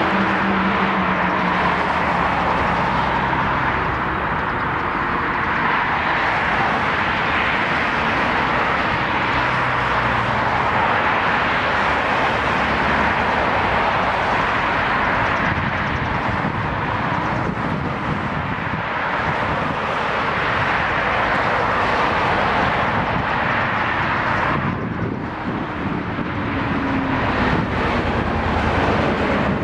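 Boeing 747-400 airliner on final approach with its landing gear down, a steady rushing jet noise. The higher hiss drops away abruptly about 25 seconds in.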